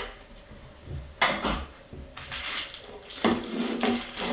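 Small cardboard knife box and plastic-wrapped folding knife being handled: sliding, rustling and light knocks on a table in several short bursts, one sharp one about a second in and more from about two seconds on.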